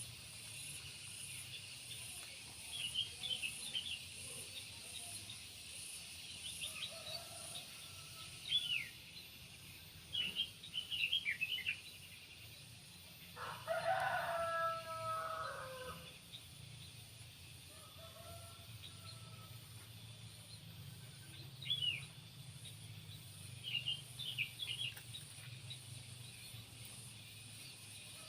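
A rooster crows once, a drawn-out call of about two and a half seconds, about halfway through. Small birds chirp in short, scattered bursts before and after it, over a steady faint background hum and high hiss.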